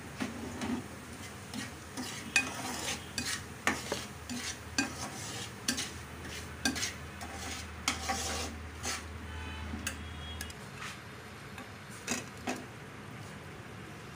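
Steel slotted spoon stirring and scraping semolina frying in ghee in a steel pan, with irregular clinks of metal on metal, about one or two a second, over a faint sizzle.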